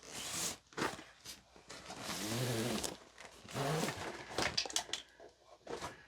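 Plastic packaging and kit contents rustling and crinkling as they are handled, in irregular short bursts with a longer stretch of rustling in the middle.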